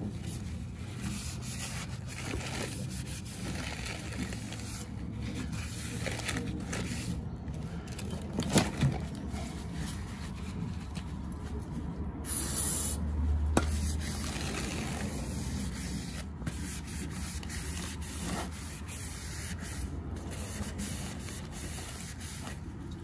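Paper towel rubbing over a new slotted brake rotor as it is wiped down, with an aerosol can of brake cleaner giving one hiss about a second long around the middle and a few light knocks. The rotor is being degreased of its anti-corrosion oil film.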